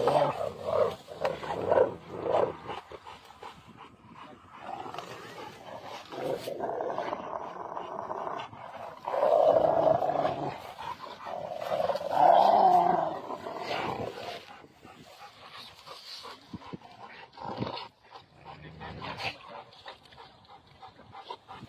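Rottweilers growling as they tug together on a large branch, in short bursts at first and in two long, loud growls about nine and twelve seconds in.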